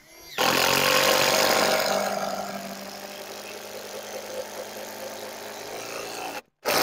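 Cordless drill driving a long structural screw through a timber beam into a post. It runs steadily for about six seconds and stops, then gives a short final burst near the end.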